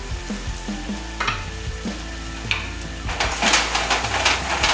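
Shrimp and onion sizzling in a wok as they are stir-fried, a wooden spatula scraping and tossing them in short strokes, busiest near the end.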